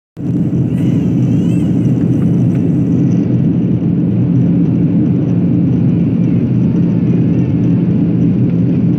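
Steady cabin noise of a Boeing 737-800 in flight, heard from a window seat over the wing: a deep, even rumble of the CFM56-7B turbofan engines and airflow. It begins abruptly a moment in and stays level.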